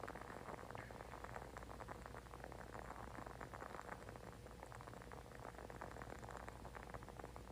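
Faint, steady crackling: a dense run of tiny irregular clicks with no rhythm, from a burning candle.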